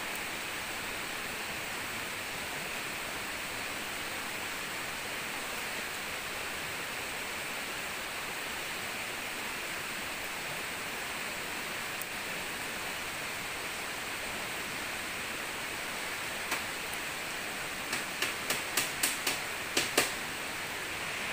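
Steady rush of river water. Near the end there is a single sharp knock, then a quick run of about eight knocks within two seconds.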